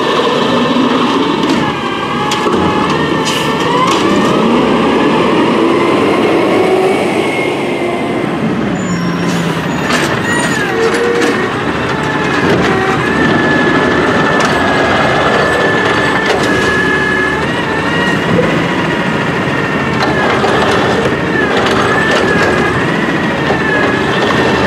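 Peterbilt 320 automated side-loader garbage truck working: the engine runs at raised revs with a whine that rises and falls as the hydraulic arm lifts and dumps a cart, with scattered clanks and knocks of the cart and arm.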